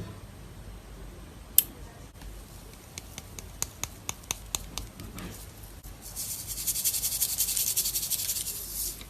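Slime being handled and squished: a sharp click, then a run of separate small pops, then about three seconds of dense, high crackling.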